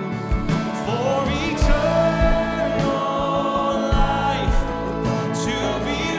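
Congregation singing a contemporary worship song with a live band: many voices together over the instruments and a steady beat.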